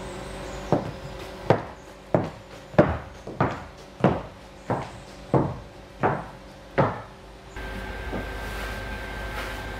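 A slow, even beat of about ten knocks, roughly three every two seconds, each dying away quickly. They stop about three-quarters of the way through, leaving a faint steady hum with a thin high tone.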